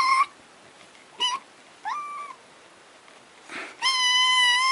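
A kitten meowing in high, thin calls: a short meow about a second in, a fainter one about two seconds in, then a long, drawn-out meow near the end.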